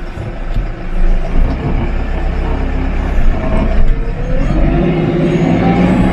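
Tractor engine running steadily under load. About four seconds in the engine note strengthens and a whine climbs in pitch and holds, as the hydraulics work the tree puller to dump the uprooted saplings.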